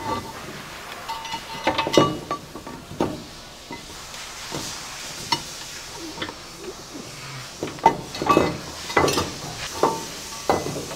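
Exhaust manifold being wrestled out from between the engine and the suspension: irregular metal clanks, knocks and scrapes, a few spaced out at first and several close together near the end as it comes free.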